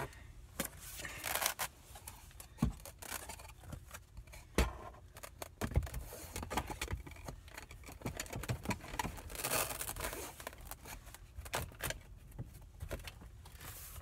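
Lightweight cellular PVC cabinet panels being handled and pressed back into place on Velcro strips: scattered scrapes, light knocks and short rustling hisses.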